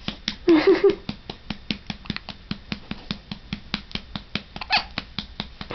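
A baby hiccuping: a short squeaky hiccup about half a second in and another a little before the end. Under it runs a rapid, even clicking at about six or seven clicks a second.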